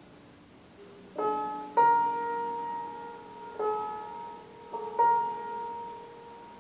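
Slow, sparse piano notes, a few at a time, each struck and left to ring and fade away; the first comes in about a second in.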